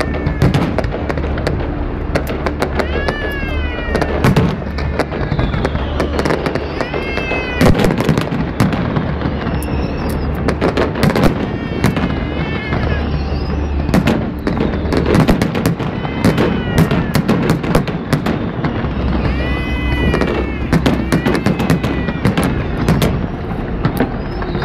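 Aerial fireworks display: a dense run of sharp bangs and crackles from bursting shells. Short high-pitched tones that rise and fall come every few seconds.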